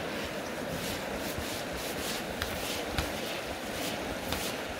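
Steady rush of a shallow river flowing, with short repeated swishes of fly line being stripped in by hand through gloved fingers at the rod's cork grip, and a couple of light clicks.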